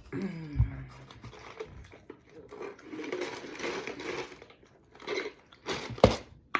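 A person chewing and crunching chicken wings close to the microphone, with a short falling vocal sound near the start and a couple of sharp knocks near the end.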